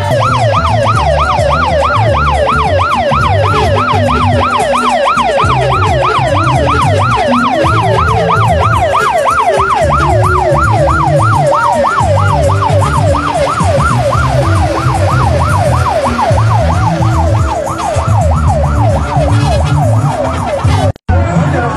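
Electronic siren sounding a fast yelp, its pitch swooping up and down about three times a second, with low thumping underneath. It fades somewhat toward the end and drops out briefly just before the end.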